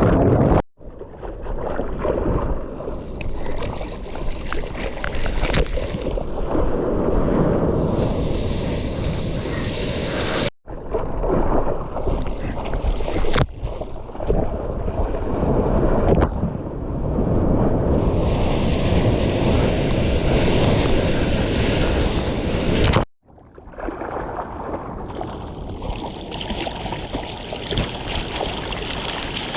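Ocean surf washing and breaking, with wind buffeting the microphone. The sound comes in several stretches separated by abrupt cuts.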